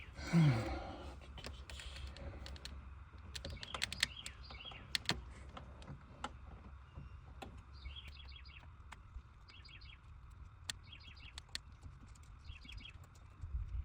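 Scattered light clicks and taps of hand tools as a spark plug is handled and fitted, with small birds chirping in repeated short bursts. A brief, loud falling sound about half a second in.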